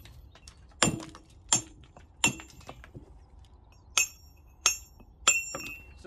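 Hammer striking a steel chisel held against a stone block, dressing it to shape: six sharp, ringing metallic strikes in two sets of three, each stroke about two-thirds of a second apart.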